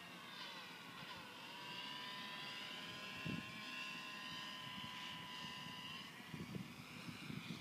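Electric motor and propeller of a HobbyZone Mini Super Cub RC plane whining overhead. Its pitch drops as it passes in the first second or so, then holds steady before fading out near the end. Wind buffets the microphone in the last second or two.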